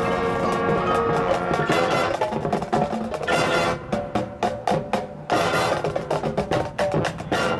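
Marching band playing its field show: held wind chords give way, about a second and a half in, to a passage of sharp, clipped percussion hits with short gaps between them, and the held chords come back near the end.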